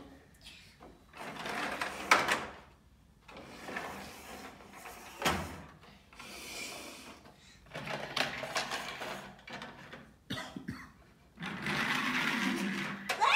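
Plastic toy trucks rolling across a wooden tabletop in several short runs, with a couple of sharp knocks as they are set down.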